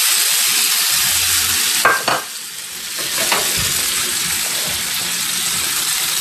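Eggs, green chile strips and diced tomato sizzling in hot oil in a frying pan, a steady hiss, with two brief knocks about two and three seconds in.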